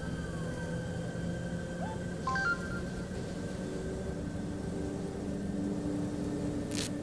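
Bus engine running, heard from inside the passenger cabin as a steady low hum. A brief run of electronic beeps sounds about two seconds in, and a sharp click near the end.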